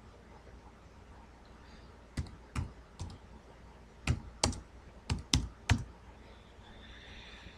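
Scattered keystrokes on a computer keyboard: about eight separate clicks in two short runs, with pauses between them.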